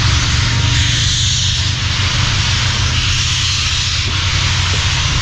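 Steady low rumble with a loud hiss over it from the moving steam-hauled train.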